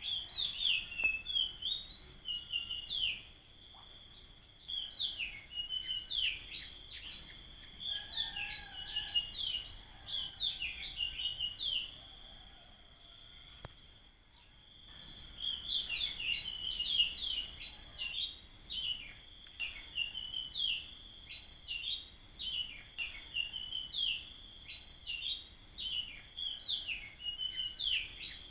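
Birds calling in quick runs of short, high, falling chirps over a steady high-pitched insect drone. The chirping eases off about four seconds in and pauses again from about twelve to fifteen seconds in before picking up.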